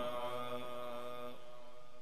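The end of a long, held melodic note of Quran recitation (tilawat) by a man's voice over a microphone and sound system. The note sits on one steady pitch, weakens at the start and dies away about a second and a half in.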